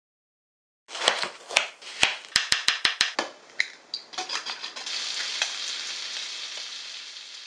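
A few sharp taps and clicks of kitchen work, including a quick run of about six clicks, then strips of bacon sizzling in a frying pan, the sizzle slowly fading.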